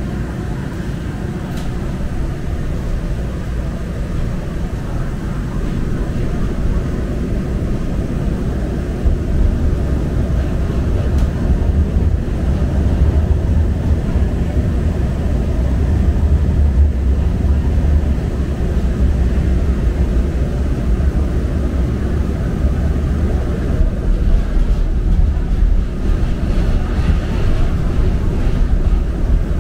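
A San Francisco Muni Metro light-rail car heard from inside as it runs along its tracks: a steady low rumble of wheels on rail and running gear, which grows louder about nine seconds in.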